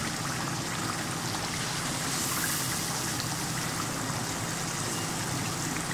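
Beef karahi sizzling and bubbling steadily in ghee in a frying pan.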